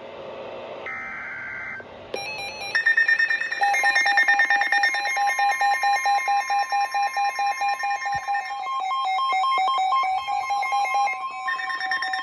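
The tail of an EAS SAME data burst, then a weather alert radio's alarm beeping in rapid, even pulses. A steady tone near 1 kHz, the NOAA Weather Radio warning alarm tone, sounds under the pulsing for about seven seconds, signalling an incoming warning.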